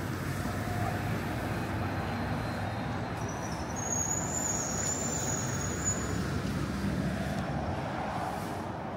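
City street traffic noise: a steady rumble of passing cars and other road vehicles. A thin high tone sounds for a couple of seconds in the middle, and a vehicle swells past near the end.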